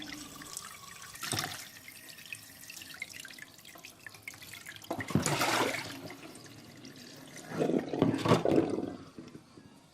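Boiled pork hocks being rinsed under a running kitchen tap, the water splashing into the sink, with louder splashes about a second in, around five seconds in and near eight seconds.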